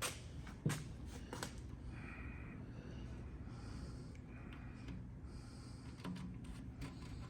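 Workshop handling sounds: a few light clicks and one louder knock about a second in, then scattered soft rustling, over a steady low hum.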